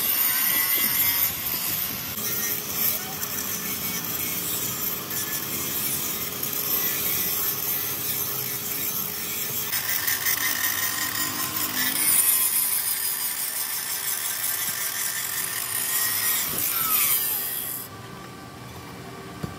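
Handheld angle grinder with its disc grinding steadily on the cast-metal body of a truck rear-spring trunnion saddle seat. Near the end the grinding drops away to a quieter level.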